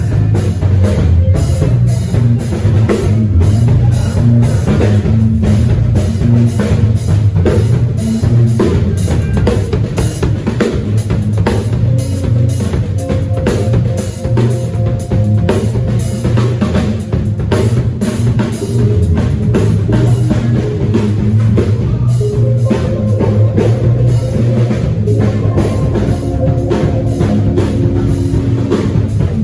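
Live drum kit, with kick and snare, played in a busy, continuous groove during a band sound check, over held notes from other instruments.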